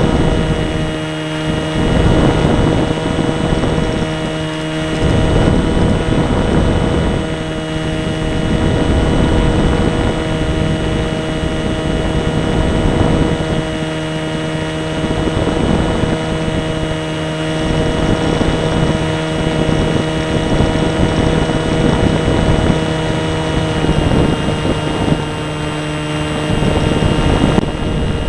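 RC model plane's motor and propeller running at a steady, nearly constant pitch, heard from a camera riding on the plane, with recurring gusts of wind noise buffeting the microphone.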